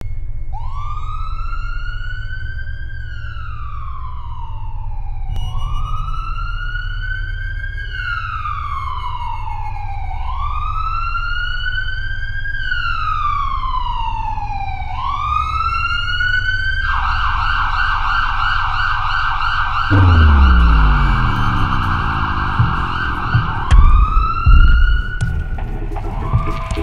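Emergency-vehicle siren in a slow wail, rising and falling about every five seconds, switching to a fast yelp about seventeen seconds in and back to the wail near the end, over a steady low hum. A deep, loud rumble with a falling pitch comes in about twenty seconds in.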